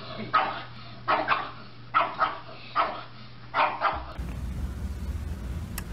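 Pug barking in short sharp barks, some in quick pairs, about one a second. The barks stop about four seconds in, giving way to a low steady rumble.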